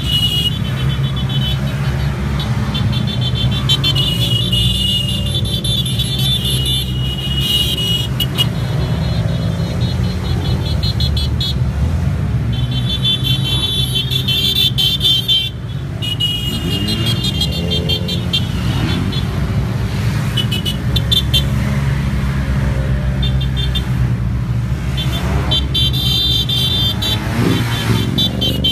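A big pack of maxi-scooters, mostly Yamaha TMAX, riding together at low speed, their engines running in a steady drone, while horns honk again and again in short and long blasts.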